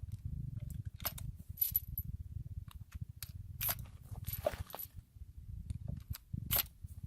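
Irregular metallic clicks and clinks of .45 Long Colt cartridges being handled and pushed one at a time into the loading gate of a Winchester Model 1873 lever-action rifle.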